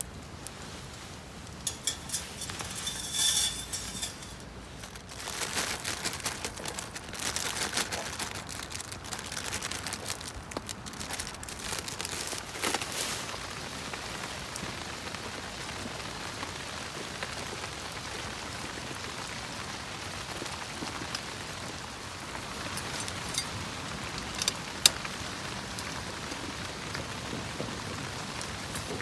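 Steady rain falling, an even hiss of drops. There are bursts of crackling in the first dozen seconds, and a few sharp clicks near the end, one of them loud.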